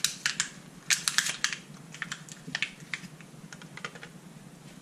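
Packaging being pulled and worked open by hand: a quick run of sharp crackling clicks, thickest in the first second and a half and thinning out after.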